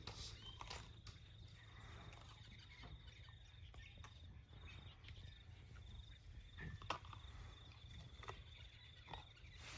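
Quiet outdoor ambience: an African elephant calf crunching a sweet potato, heard as a few soft scattered clicks, over a faint steady insect drone and a low wind rumble.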